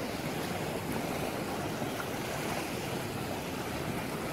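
Ocean surf washing in over volcanic rocks on an incoming tide: a steady rush of water, mixed with wind.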